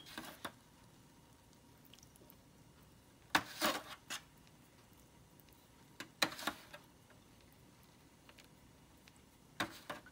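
Metal spoon scooping pan juices from a foil roasting pan and spooning them over Cornish hens while basting: short scrapes and splashes a few seconds apart.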